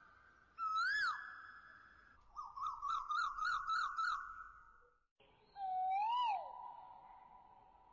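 Background music: a single high melodic line of held notes, each ending in a quick swoop up and down, with a fast warbling trill in the middle.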